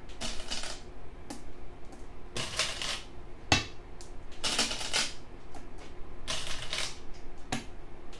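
Go stones clattering in short rattling bursts about every second or two, with one sharp click about three and a half seconds in.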